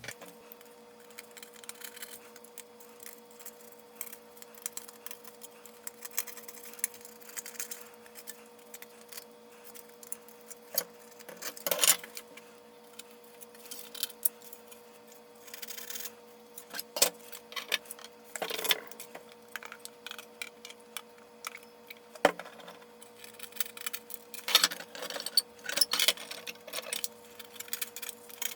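Irregular small clicks, taps and scrapes of a plastic toy hull being handled and worked on while its old sticker adhesive is cleaned off, with a steady faint hum underneath.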